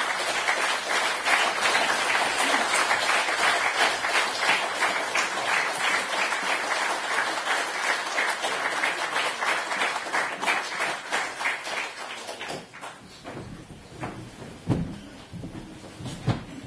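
Audience applauding, a dense clapping that fades away after about twelve seconds. A few low knocks follow near the end.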